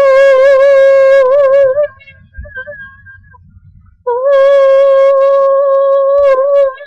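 A young girl singing unaccompanied, holding one long note with a slight waver that ends about two seconds in, then after a short pause another long held note at the same pitch.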